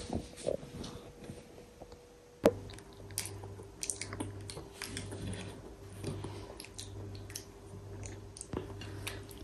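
A toddler chewing and munching food, with small scattered clicks and taps, over a faint steady hum.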